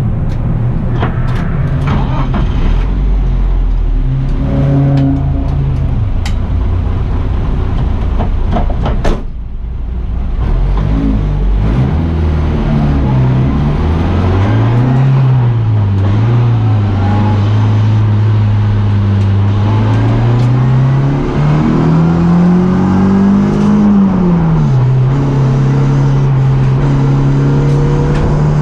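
BMW 318ti Cup race car's four-cylinder engine running under racing load, with rattles and knocks through the first several seconds and a sharp bang about nine seconds in. After that the engine note climbs and falls repeatedly with throttle and gear changes, rising steadily near the end before a quick drop.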